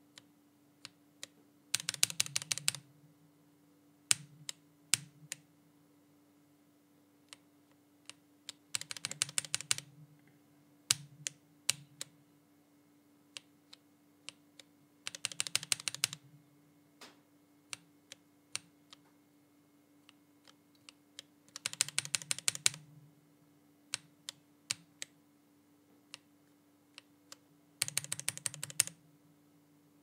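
Lubed linear mechanical keyboard switches (KTT Tofu, then KTT Red Rose) in a keyboard with a silicone dampener, one key pressed over and over. Single presses alternate with five rapid runs of presses, each about a second long, roughly every six seconds.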